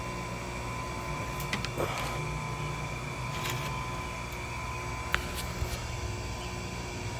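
Steady electric hum with a few light metallic clicks and taps, as a saw chain is clamped and positioned in a bench chainsaw sharpener.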